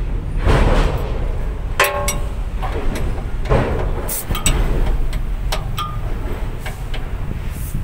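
Metal clinks and taps from hand work on a truck's brake chamber hardware at the axle, with one ringing metallic clink about two seconds in and several shorter clicks later, over a steady low rumble.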